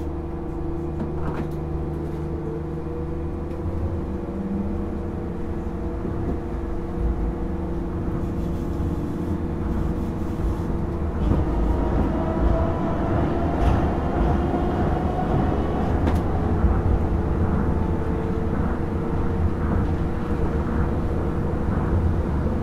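Tokyo Monorail Series 1000 car, a Hitachi train with resistor control, running: a steady low rumble with a motor whine that rises in pitch over the first several seconds and rises again from about halfway.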